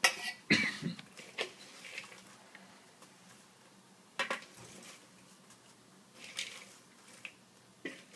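A metal spoon knocking and scraping against a stainless saucepan and a glass bowl while caramel-coated popcorn is stirred: a few separate clinks and short scrapes with quiet gaps between.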